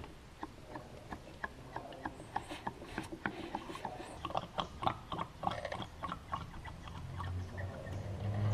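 New engine oil glugging and gurgling as it is poured from a plastic jug through a funnel into a car engine's oil filler, with irregular wet crackles. A low steady tone builds near the end.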